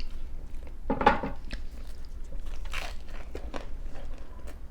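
Biting and chewing a crunchy pizza crust close to the microphone: a run of crunches, the loudest about a second in.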